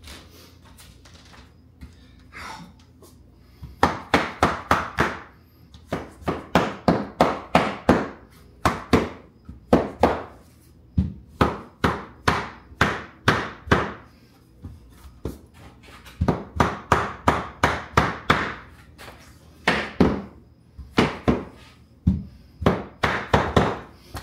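A mallet tapping hardwood floorboards together to seat their tongue-and-groove joints, in runs of quick, sharp knocks about three or four a second with short pauses between runs, starting about four seconds in.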